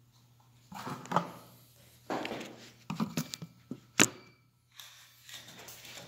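Plastic smoke-detector parts being handled and taken apart: scraping and knocking of hard plastic against plastic and the wooden bench, with one sharp click about four seconds in.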